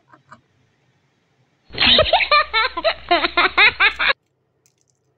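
High-pitched laughter in quick rhythmic pulses, starting about two seconds in and lasting about two and a half seconds, cutting in and out abruptly like an inserted laughter sound effect.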